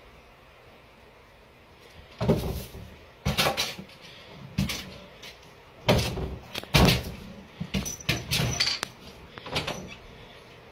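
Cats leaping against a closed wooden door, their bodies and paws knocking and rattling it. A string of knocks starts about two seconds in and runs on irregularly, sometimes several close together.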